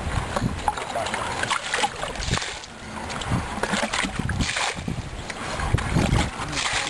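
Shallow muddy water sloshing and splashing irregularly around a woven basket being held and worked in it, with wind buffeting the microphone.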